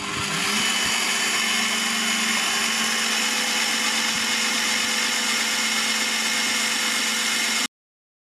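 Parkside PTBM 710 A1 bench pillar drill's motor running steadily at about 500 rpm while drilling a 10 mm hole in a steel bar. It comes up in the first half second, holds an even hum, and cuts off abruptly near the end.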